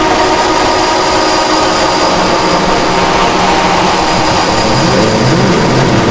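Synthesizer music from a Novation MiniNova: a sustained, droning chord held steady, with a low bass part that bends up and down coming in near the end.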